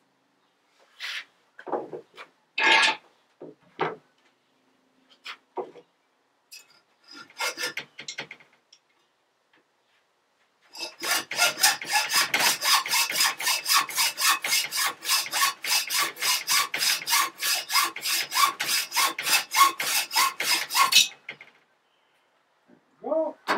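Rapid, regular rasping strokes of a hand metalworking tool on the steel shovel clamped in a vise, about four a second for about ten seconds in the second half, stopping abruptly. Before that, scattered light knocks and clatter of tools being handled.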